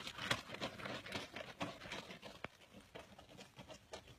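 Light, quick footsteps of a small child running on a dirt road, an irregular patter that grows fainter.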